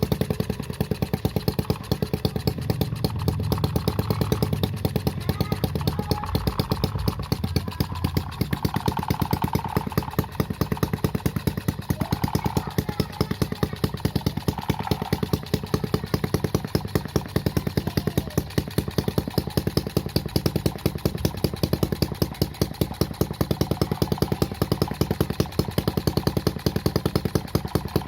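Homemade miniature four-stroke engine running steadily through its new exhaust, an even, rapid exhaust beat with a deep, bassy note.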